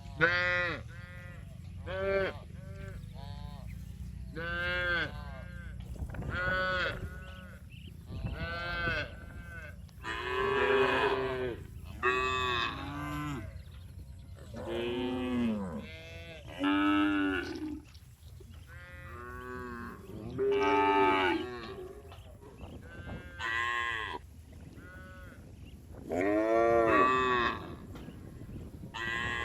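Cattle mooing over and over, a string of separate calls about every second or two, some short and some drawn out, each rising and falling in pitch.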